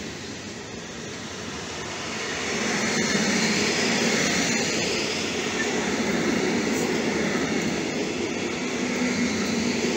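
Log-laden freight wagons rolling past: a steady rumble and rattle of wheels on the rails, getting louder about two and a half seconds in.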